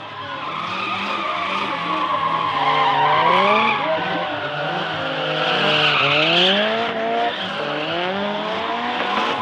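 A drift car's engine revving up and down again and again as it slides, with tyres squealing; the squeal is loudest about six seconds in.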